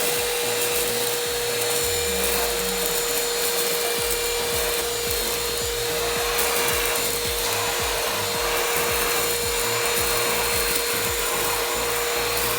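Cordless handheld vacuum cleaner running steadily: a constant motor whine over an airy suction hiss.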